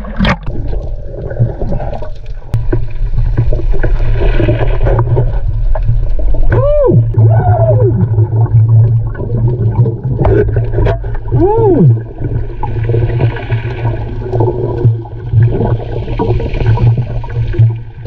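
Underwater sound of a scuba dive: a steady low hum with stretches of hissing exhaled bubbles, and an underwater metal detector's tone rising and falling, twice, about seven and eleven seconds in, as it passes over a metal target.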